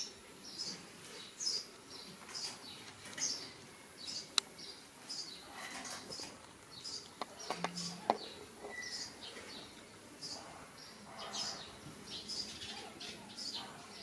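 Small birds chirping over and over, short high chirps about once or twice a second, with a few sharp clicks around the middle.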